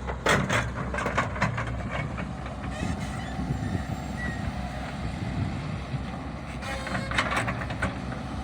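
Excavator diesel engine running steadily, with clusters of sharp metallic clanks in the first second or so and again near the end.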